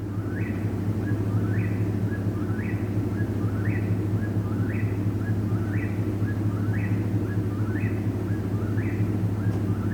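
Eastern whip-poor-will singing its 'whip-poor-will' song over and over, about one phrase a second, nine or ten times, each phrase ending in a rising note. A steady low hum runs underneath.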